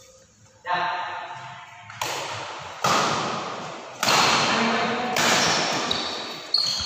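Badminton rally: racket strings striking a shuttlecock, about six sharp hits roughly a second apart, each ringing on in the echo of a large hall.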